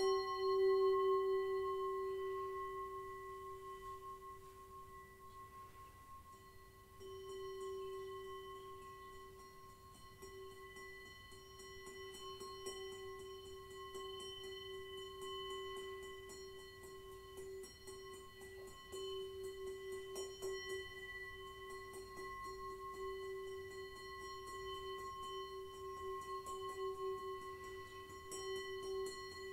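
Tibetan singing bowl struck at the start, ringing with a deep tone and several higher overtones that slowly fade. It swells again about seven seconds in and then sings on at a steady level with a slow wavering pulse. From about ten seconds in, faint, fast, light ticking sounds over it.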